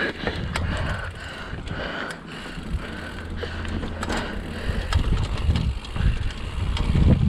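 Mountain bike rolling down a dirt trail: tyre rumble over rough ground with scattered clicks and rattles from the bike. The rumble grows louder over the last couple of seconds.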